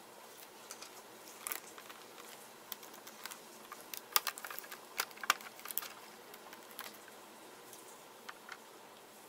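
Irregular light clicks and taps of small tools and plastic laptop parts being handled during a teardown, busiest and loudest about halfway through.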